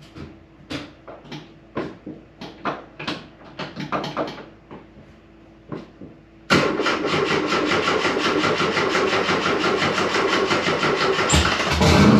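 Turbocharged Subaru engine in a VW Super Beetle being cranked by its old, worn starter: slow, uneven cranking with irregular knocks, the starter struggling against the engine's compression. About six and a half seconds in the engine catches and then runs steadily and loudly, with a single thump near the end.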